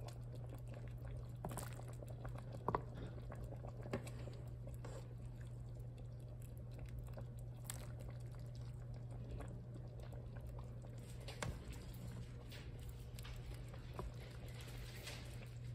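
Taco soup being ladled from a pot into a bowl: soft wet sloshing and dripping with light knocks of the ladle, two sharper ones about three and four seconds in, over a steady low hum.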